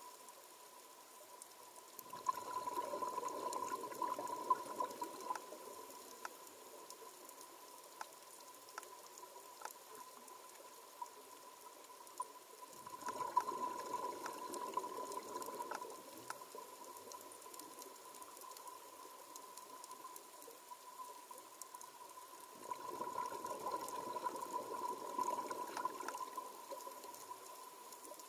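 Scuba regulator exhaust bubbles from the filming diver, heard underwater: three breaths out, about ten seconds apart, each a gurgling rush of bubbles lasting three to four seconds. A steady thin tone and scattered faint clicks run underneath.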